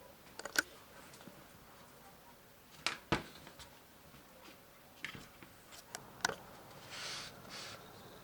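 A few sharp clicks and knocks at irregular intervals, with a close pair about three seconds in, then a brief rustling scrape near the end.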